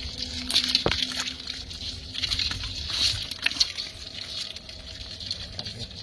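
Wet sloshing and squelching from a heap of freshly netted fish, crayfish and frogs shifting in a container, with many small irregular clicks and taps.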